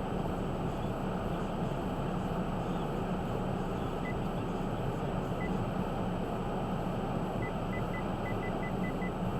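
Steady rumbling noise of a vehicle driving, with a short high beep twice and then a quick run of about eight beeps near the end.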